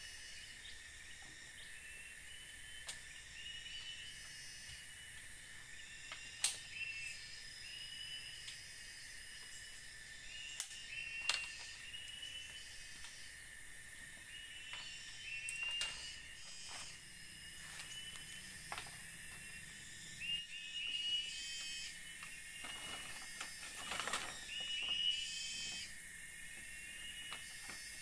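Tropical forest ambience: a steady high insect buzz with a short chirping call repeating about once a second. Over it, a few sharp knocks and clatters of bamboo poles and strips being handled, the loudest about six seconds in.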